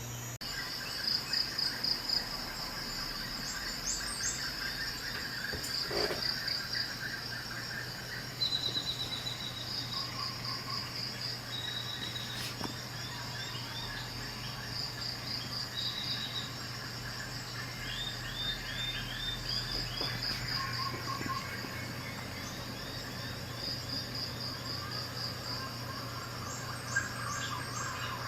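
Birds and crickets chirping in repeated short, high trills over a steady low hum.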